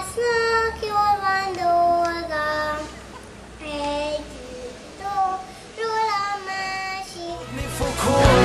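A pop song's lead vocal sings long, held notes over light accompaniment, in several phrases with short gaps between them. The full band with guitars comes back in near the end.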